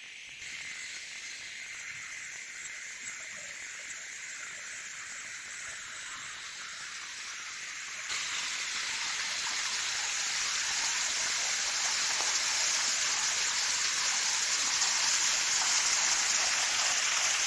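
Rushing water of a waterfall and river, a steady hiss that grows louder, with a sudden jump in level about halfway through.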